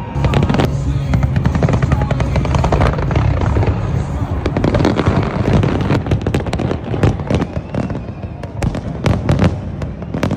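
New Year fireworks going off: a dense, continuous run of bangs and crackles over a low rumble.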